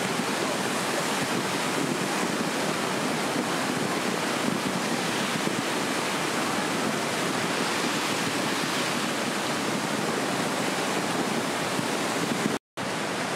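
Kali Gandaki River in flood: a steady, full roar of fast, muddy floodwater rushing and churning in standing waves. The sound cuts out for an instant near the end.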